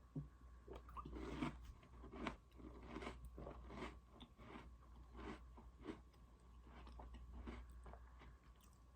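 Close-miked chewing of Oreo cookies: a string of soft, crunchy bites and chews, roughly one every half-second to second.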